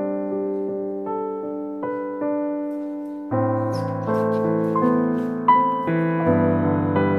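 Background music: slow piano, with deeper bass notes joining about three seconds in.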